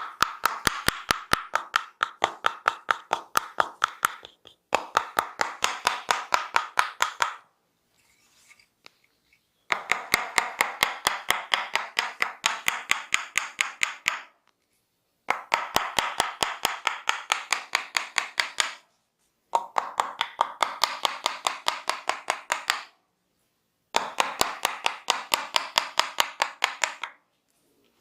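Rapid, rhythmic hand strikes of a percussive massage: the barber's hands chopping and slapping on the body, several sharp claps a second. They come in runs of a few seconds, broken by short pauses.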